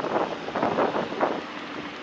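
Wind buffeting the microphone of a moving bicycle, in irregular gusts that ease off about one and a half seconds in.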